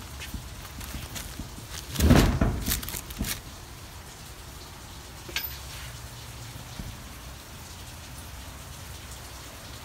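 Steady hiss of rain falling. About two seconds in comes a loud burst of handling noise from the zippered CD cases being moved: a thump and rustling with a few sharp clicks. A single click follows a couple of seconds later.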